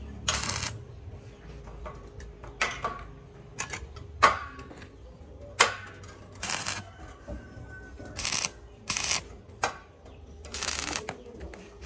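Electric arc of a stick welder crackling in short bursts as tack welds are struck on galvanized steel tubing: about eight bursts, each under a second, with a steady low hum between them.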